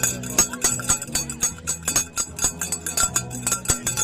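Handheld cowbells being rung rapidly and unevenly: a clattering run of sharp metallic strikes, several a second.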